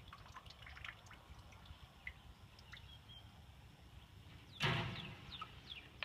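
A horse blowing once through its nostrils, a short breathy snort about three-quarters of the way through, among faint high clicks and short chirps.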